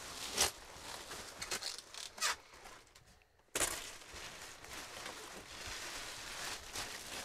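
Clear plastic wrapping rustling and crinkling as it is pulled and bunched off a new mattress, in irregular scrunches with a brief lull about three seconds in.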